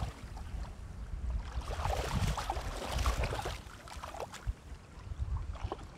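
Wind buffeting the microphone in a low, uneven rumble, with a rush of louder hissing noise from about one to three and a half seconds in.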